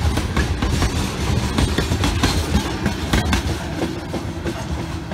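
Freight train of tank cars rolling past close by: a steady low rumble with the wheels clicking irregularly over the rail joints, easing off a little near the end.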